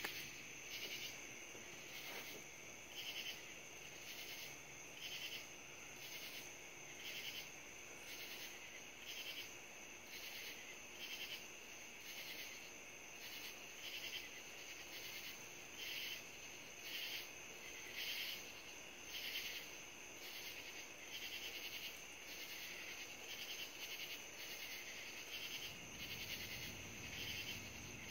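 Night insect chorus: a steady high trill with louder pulsing chirps repeating about once a second.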